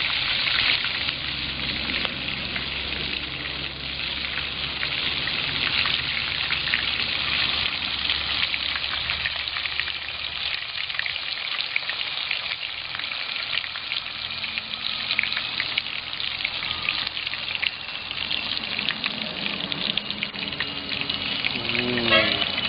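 Sea crabs deep-frying in hot oil in an aluminium pot: a steady sizzle with many small crackles and pops.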